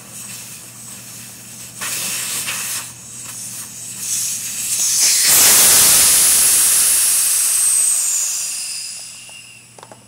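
Air hissing out of a Chinese scooter's tire through the valve stem, its Schrader core removed, as the tire deflates. Short bursts of hiss about two seconds in, then a loud rush from about five seconds that tapers away near the end.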